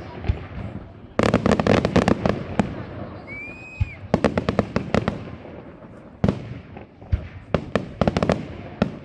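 Aerial fireworks display: sharp bangs and shell bursts in quick clusters, with a dense run of crackling bangs about a second in and a brief whistling tone about three seconds in.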